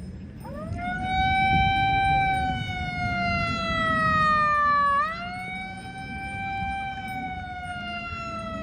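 A siren wailing. It rises about half a second in, slowly falls in pitch, winds up again about five seconds in and slowly falls again.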